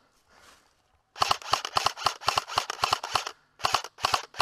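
Airsoft rifle firing in quick bursts of sharp cracking shots. The shooting starts about a second in as a long rapid string with short breaks, then two short bursts near the end.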